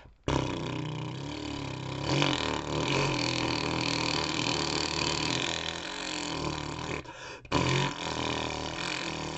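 A man imitating a boat propeller spinning in water with his voice: a steady, buzzing rumble from the throat and mouth that stops for a moment about seven seconds in, then starts again.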